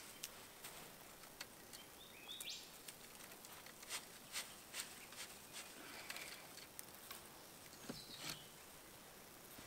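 Quiet bush ambience: scattered faint ticks and clicks, with brief bird chirps about two seconds in and again about eight seconds in.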